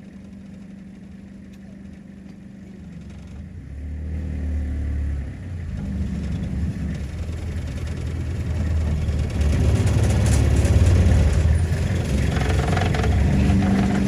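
A motor vehicle's engine running low and steady, growing louder from a few seconds in as it comes closer.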